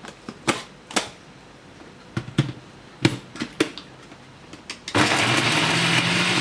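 Plastic and metal clicks and knocks as the lid and stainless chopper bowl of a Mito BS100 blender are fitted onto its base. About five seconds in the motor starts and runs at a steady whir, its pitch rising slightly, grinding whole spices into a paste.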